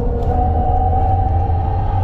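Hyundai Ioniq 5 N electric car driving at speed, heard from inside the cabin: a steady high tone, rising slightly, over a loud low road rumble.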